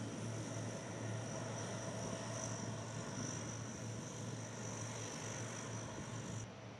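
Turboprop engines of C-130 Hercules transport aircraft taxiing, a steady drone with a low hum and a high whine. The whine cuts off suddenly near the end.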